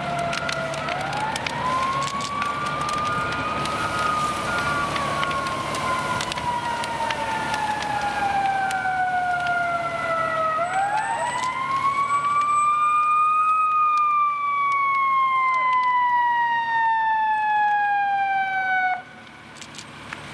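A fire truck's siren wound up twice: each time it climbs quickly in pitch over about three seconds and then slowly falls away, the wind-up and coast-down of a mechanical siren, before it cuts off suddenly near the end. A repeated beep sounds alongside it through the first two-thirds.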